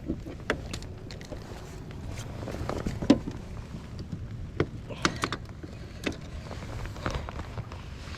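Scattered clicks and knocks over a steady low rumble, the loudest knock about three seconds in.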